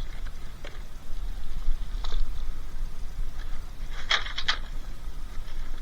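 Items being handled and rummaged through: scattered light scrapes and knocks, with a quick run of sharp clicks about four seconds in, over a steady low rumble.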